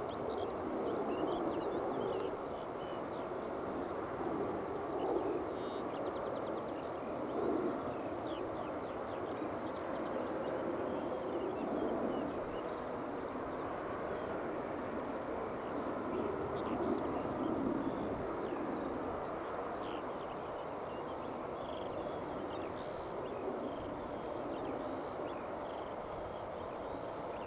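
Distant jet engines of a Boeing 737-800 at low taxi power, a steady hum as the airliner taxis and turns onto the runway, with small birds chirping faintly above it.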